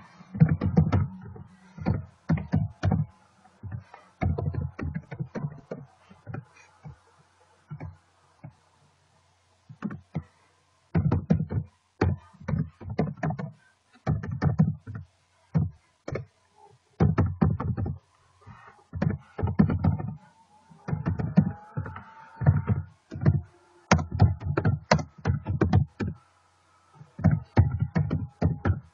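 Computer keyboard typing in bursts of rapid keystrokes, with short pauses between fields and a longer pause about eight seconds in.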